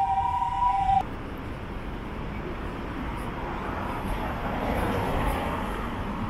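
A steady two-tone electronic warning tone cuts off about a second in. Street traffic follows, with a car passing close by and swelling in level around five seconds in.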